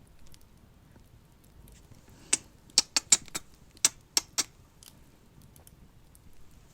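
A quick run of about eight wet kisses made close to the microphone, bunched into two seconds in the middle, with quiet room tone around them.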